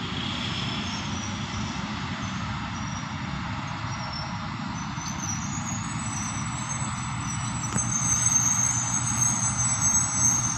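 CSR SDA4 diesel-electric locomotive running light at low speed, its diesel engine droning steadily. High-pitched metallic squealing from the running gear builds through the second half and is loudest near the end, with one sharp click partway through.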